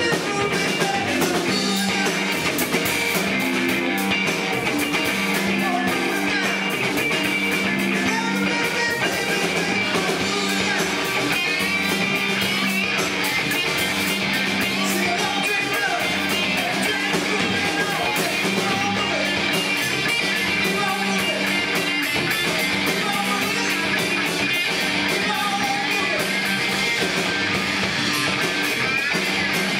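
Live rock band playing: electric guitars over a drum kit, with a steady beat and even loudness throughout.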